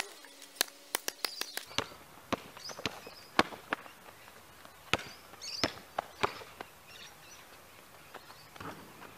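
Basketball bouncing on an outdoor asphalt court during one-on-one play: scattered sharp bounces, with a quick run of dribbles about a second in, and a few footsteps. Faint bird chirps sound now and then.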